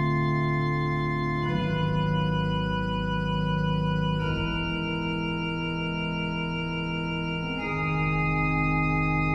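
Casavant pipe organ playing slow, sustained chords over a deep held bass. The chord changes three times, about every three seconds.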